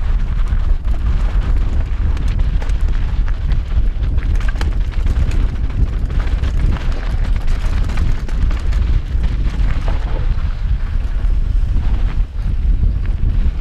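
Heavy wind rumble on a GoPro HERO4's microphone as a Santa Cruz Bronson mountain bike descends a loose, rocky downhill trail at speed, with a dense patter of quick clicks and rattles from the bike over the rough ground.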